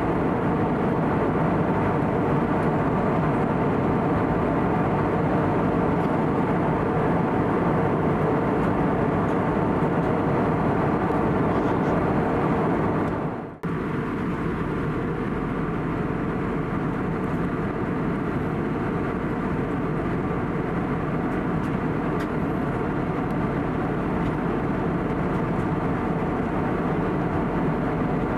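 Steady cabin noise inside an Airbus A320neo in flight: airflow and the hum of its CFM LEAP-1A engines. About halfway through the sound drops out for a moment, then resumes a little quieter.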